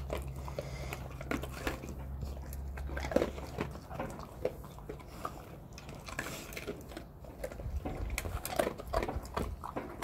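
Dogs eating dry kibble from a hand: irregular crunches and clicks of chewing.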